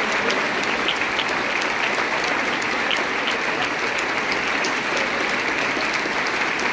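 Large audience applauding steadily, a dense, even wash of clapping.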